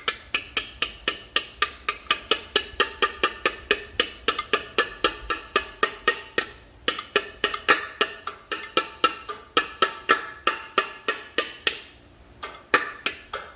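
Light, steady hammer taps on a brass punch, about four a second, driving the input-shaft bearing race into a manual transmission case little by little; a brief pause near the end before the tapping resumes.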